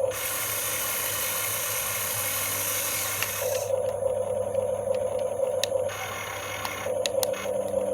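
Huina 1535 RC excavator's small electric motors and gearboxes whirring with a gritty rattle, plus a few sharp clicks. For the first three and a half seconds the sound is harsher and hissier, as under heavier load, and then it settles back to a steadier whir.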